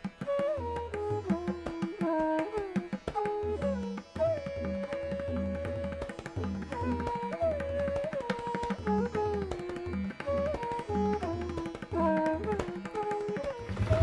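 Background instrumental music in an Indian classical style: a melody line that slides between notes over a steady pattern of hand-drum strokes.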